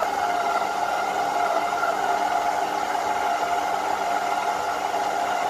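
Stand mixer motor running steadily with its flat beater, creaming softened butter with icing sugar and ground almonds for a sweet pastry dough; a steady whine.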